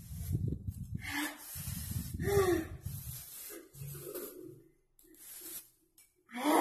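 Instant noodles being slurped with the mouth: a few long, noisy slurps in the first three seconds, then softer mouth sounds.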